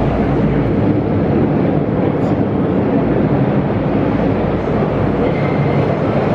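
Steady rumble of an MTR Tsuen Wan Line train, with faint voices underneath.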